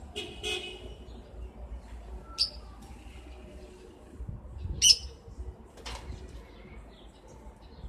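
Birds giving a few short, sharp chirps spaced out over several seconds, the loudest about five seconds in.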